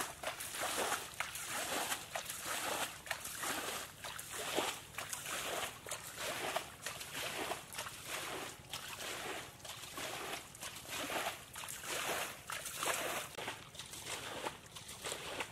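Shallow muddy water sloshing and splashing in quick, irregular bursts, about one or two a second, as hands scoop and throw it.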